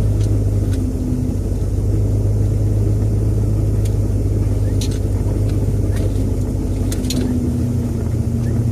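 1966 Ford Thunderbird's V8 engine and drivetrain heard from inside the cabin while driving: a steady low drone, with a few light clicks.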